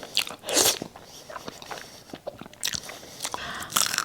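Close-miked eating sounds of a person chewing spicy instant noodles: irregular wet mouth clicks and chewing, with short louder bursts about half a second in and near the end.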